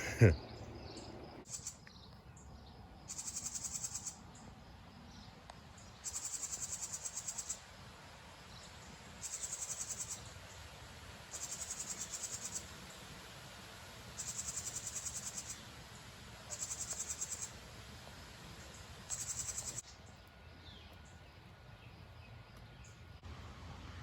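An insect calling in repeated high, buzzy bursts, each about a second long and coming roughly every two seconds, over quiet outdoor background. A brief loud falling sweep sounds right at the start.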